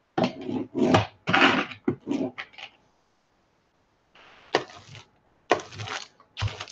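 Rubber brayer rolled over a painted art-journal page, making short, tacky crackling strokes. There is a run of strokes at first, a pause of about a second and a half, then more strokes near the end.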